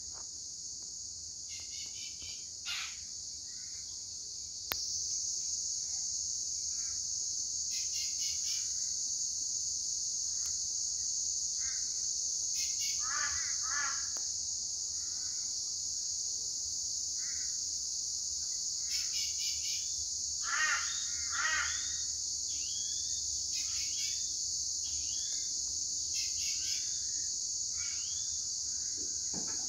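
Steady high-pitched insect drone with wild birds calling over it: short repeated chirps and a few harsh, cawing calls, the loudest about 13 and 21 seconds in. A click about 5 seconds in, after which the drone is louder.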